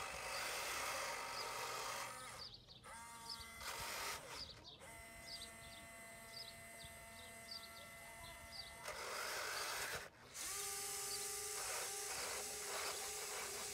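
Small electric motors and gears of a radio-controlled model excavator whirring in several bursts that start and stop, over a steady pitched whine. Small birds chirp in the background.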